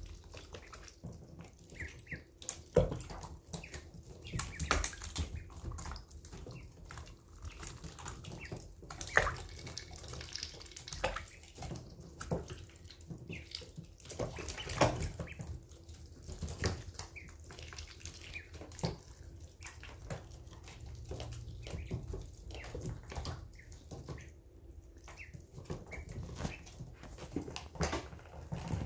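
Ducklings dabbling in a shallow plastic tub of water, bills splashing, slurping and clicking against the plastic in irregular bursts.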